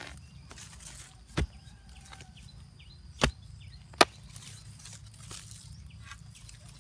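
A digging tool chopping into soil around the roots of a young toothbrush tree: three sharp strikes, the first about a second and a half in and the other two close together past the middle, with a few lighter knocks between.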